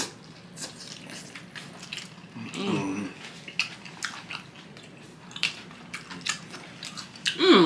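Close-up mouth sounds of two people biting into and chewing sub sandwiches: wet clicks and soft crunches of bread, scattered irregularly. A brief vocal sound about three seconds in.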